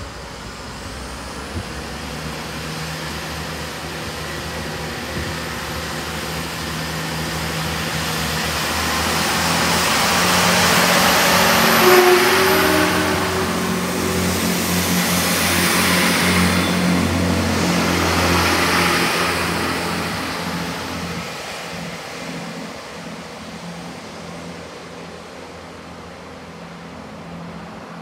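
A GWR Class 165/166 Networker Turbo diesel multiple unit approaches and passes. Its engines drone and its wheels rumble on the rails, building to their loudest about twelve seconds in, then fading as it draws away.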